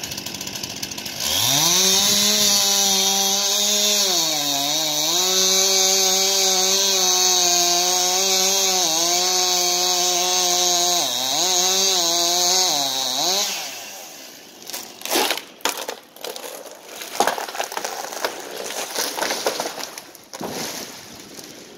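Two-stroke chainsaw revving up and cutting into a dead ash trunk at full speed, its note dipping briefly a few times under load, then stopping about 13 seconds in. A series of loud cracks and crashes follows as the trunk barber-chairs, splitting lengthwise up the stem, and falls.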